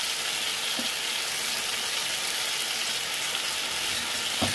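Chicken Manchurian (fried chicken pieces, capsicum and onion in a soy-chilli sauce thinned with a little water) sizzling in a nonstick wok as a steady hiss, with one brief low sound near the end.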